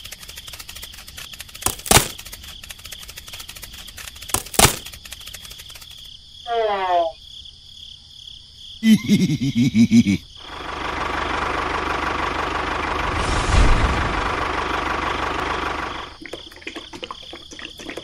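A string of cartoon-style sound effects: two sharp knocks, a quick falling whistle, a short burst of squeaky chattering, then a steady rushing noise lasting about five seconds.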